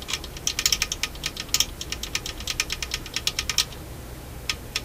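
Dual 1228 turntable changer mechanism clicking and rattling as it is worked by hand: a rapid, irregular run of small metal clicks for about three and a half seconds, then a couple of single clicks near the end.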